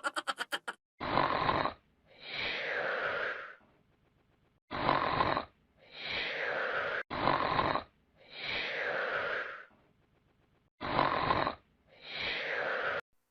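A baby snoring in her sleep: four breaths about three seconds apart, each a short, louder snore followed by a longer, softer one. A fading rapid rattle sounds in the first second.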